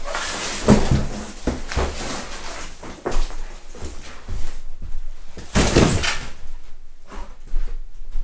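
Large sheets of cardboard packaging being gathered up, dragged and carried: scraping and rustling with dull knocks, the loudest a long rush of cardboard noise about six seconds in.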